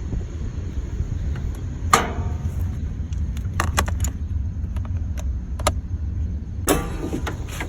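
A vehicle engine idling with a steady low rumble, broken by scattered metallic clinks and knocks and a longer clatter near the end.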